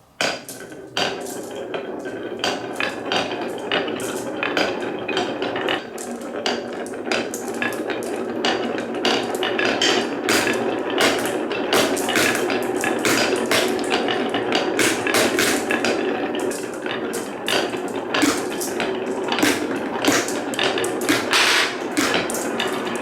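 Balls rolling down the wooden slopes and rails of a marble run, starting suddenly: a steady rolling rumble with many quick clicks and clacks of the balls against the wood.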